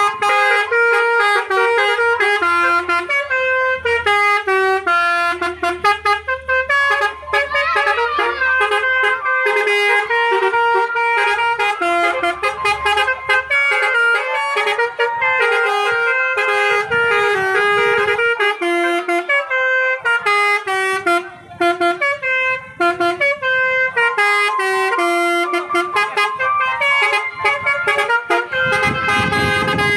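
Basuri musical bus horn playing a fast, unbroken melody of short blaring notes that step up and down in pitch.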